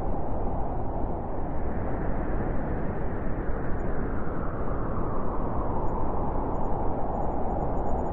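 Blizzard wind blowing, a dense rushing noise that swells in a gust through the first half and then eases back.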